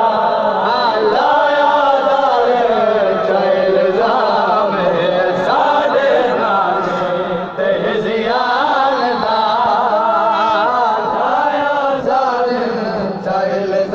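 A man sings a noha, a Shia mourning lament, into a handheld microphone in a long, wavering chanted melody.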